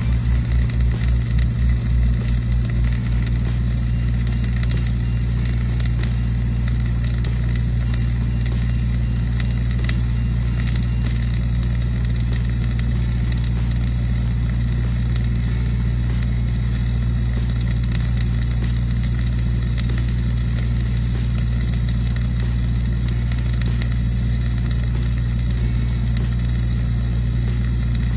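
Engine-driven welding machine running with a steady low hum that throbs for the first few seconds and then evens out, under the crackle of a flux-cored wire welding arc.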